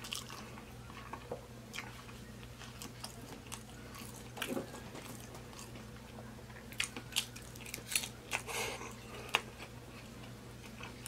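Close-miked chewing of cheesy chili fries and pork belly: scattered wet mouth clicks and smacks, clustered about four seconds in and again from about seven to nine seconds.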